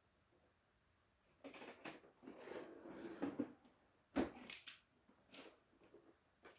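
Faint handling sounds: irregular clicks and rustling of small objects being moved, with a sharp knock about four seconds in.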